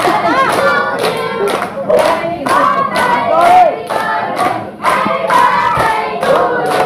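A group of adults and children singing a birthday song together, clapping in time.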